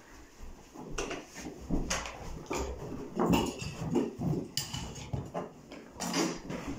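Irregular clinks, knocks and rustling: metal hand tools in a carpet fitter's tool pouches and work clothing as he moves about.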